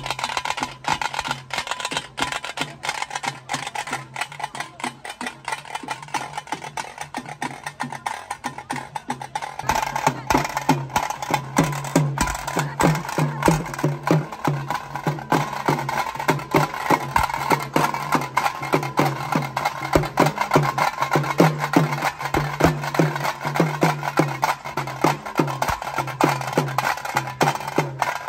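A procession drum troupe playing a fast, driving rhythm on drums struck with sticks, with sharp rapid strokes; it gets louder and busier about ten seconds in.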